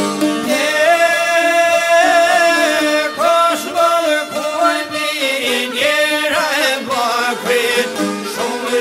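Albanian folk song: a man sings a wavering, ornamented melody over plucked long-necked lutes (çifteli), the voice coming in about half a second in.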